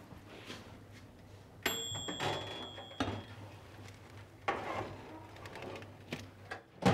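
Countertop electric oven being opened and a metal baking pan taken out: a sharp metallic clank with a brief ringing tone about a second and a half in, then clattering and scraping of the pan on the oven rack, and a loud knock near the end.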